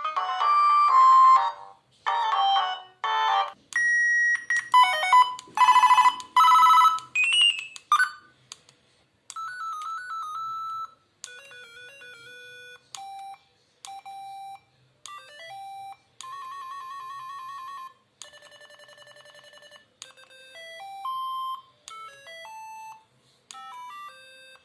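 Siemens A51 mobile phone playing one short alert tone after another, with brief pauses between them. The first few are louder melodic phrases and chirps. Most of the rest are quieter patterns of electronic beeps, each a few seconds long at most.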